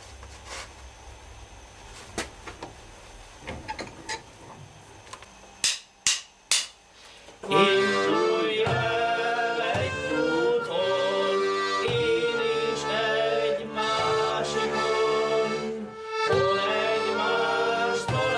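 Scattered faint knocks, then three sharp clicks, and about seven seconds in an accordion starts playing a lively tune with chords, a drum striking along on the beat.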